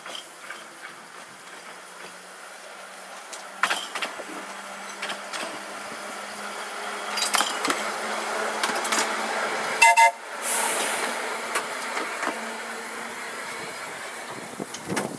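Electric tram running along the narrow-gauge track with a steady low motor hum and wheel and rail noise, growing louder as a second tram passes close alongside. About ten seconds in a short, loud warning toot sounds, followed by a brief hiss.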